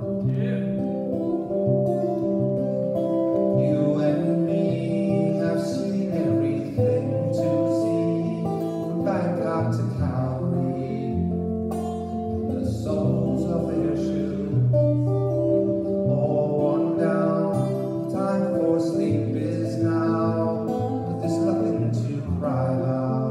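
Solo archtop guitar playing a tune, a steady run of plucked notes and chords with no pauses.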